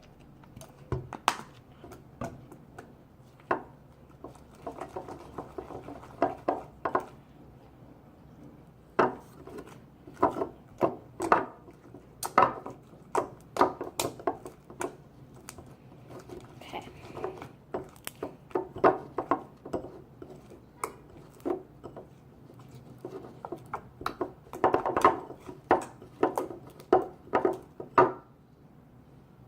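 Clear glue slime being mixed in a bowl as contact solution is worked in: irregular sticky clicks and taps that come in clusters and stop about a second before the end.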